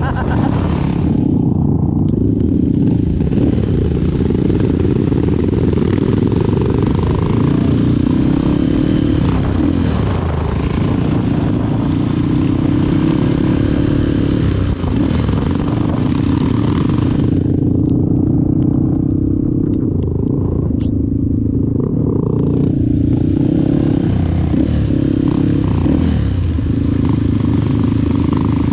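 Off-road trail motorcycle engine running steadily while being ridden.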